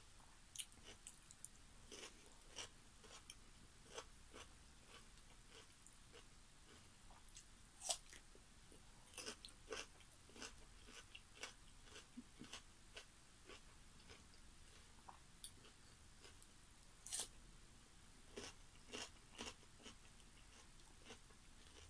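Faint crunching and chewing of raw cucumber sticks being bitten and eaten close to the microphone: scattered short crisp crunches, a little louder about 8 and 17 seconds in.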